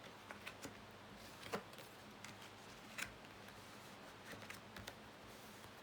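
Tarot cards being turned over and laid on a table: a scattering of soft clicks and taps, the loudest about a second and a half and three seconds in.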